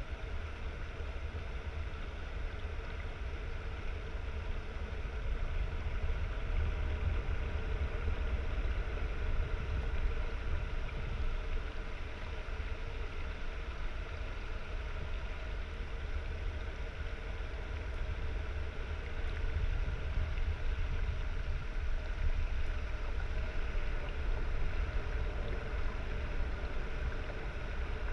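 Steady low underwater rumble in a large aquarium tank, with a faint steady hum above it.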